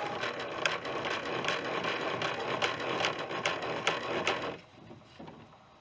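Height-adjustment crank of a Performax 12-1/2-inch benchtop planer being turned to raise the cutter head: a quick, even mechanical rattle of many small clicks that stops about four and a half seconds in.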